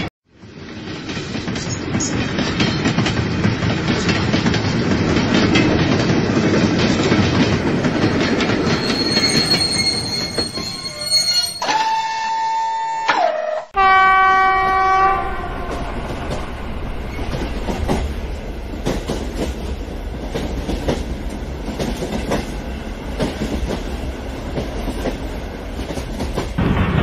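Electric model trains running along plastic sectional track with a steady rattle of wheels over the rails. About halfway through, a train horn sounds twice in a row, the first blast about two seconds long and dipping in pitch at its end, the second one shorter and lower.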